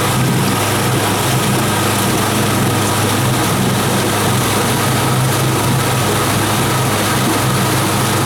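Houseboat's transom-mounted outboard motor running steadily under way, a constant engine hum over the rush of water and air.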